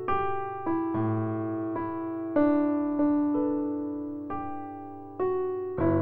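Soft solo piano background music: slow notes and chords, each struck and left to ring and fade.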